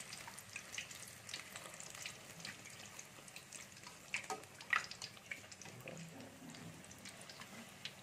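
A star-fruit-shaped dough sweet deep-frying in hot oil in a kadai: a faint steady fizz with scattered crackles as oil is spooned over it so it puffs up. A few sharp clicks of a metal slotted spoon against the pan, around the middle.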